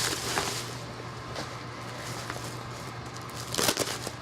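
Packaging being unwrapped by hand: rustling and crinkling with small clicks, and a louder rustle about three and a half seconds in.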